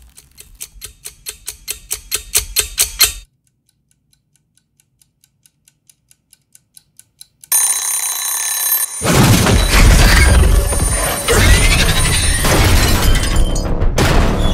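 Wind-up mechanical kitchen timer ticking rapidly and swelling in loudness, then its bell ringing at the end of the countdown about seven and a half seconds in. From about nine seconds a loud crashing, rumbling din takes over.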